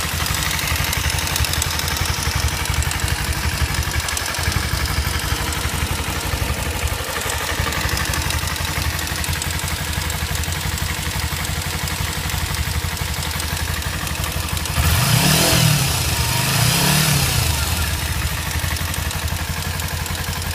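Kawasaki Ninja motorcycle engine idling with a ticking noise, then revved briefly twice, about fifteen seconds in, before settling back to idle.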